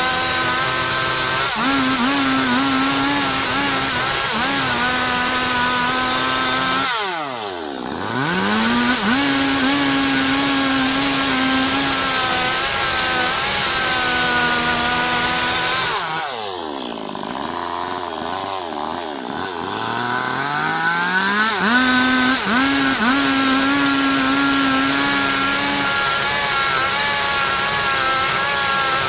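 Stihl MS 382 two-stroke chainsaw running at full throttle while cutting wood. Twice the revs drop sharply and climb back up, briefly about a quarter of the way in and for several seconds past the middle.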